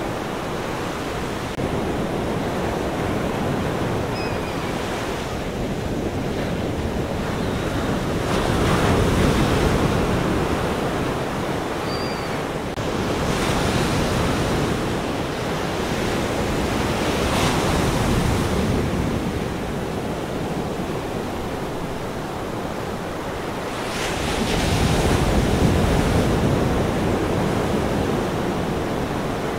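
Ocean waves breaking and washing on shore, a steady rush that swells and falls back in slow surges every several seconds.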